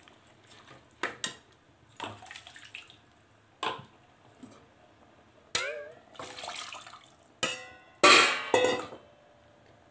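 Water poured from a steel tumbler into a pressure cooker pot of rice and chicken masala, in several separate pours, with sharp clinks of the metal tumbler against the pot. The loudest pour comes near the end.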